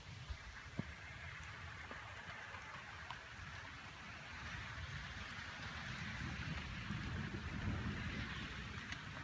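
Steady rain hissing during a thunderstorm, with a faint tap about a second in and another near two seconds. A low rumble builds through the second half.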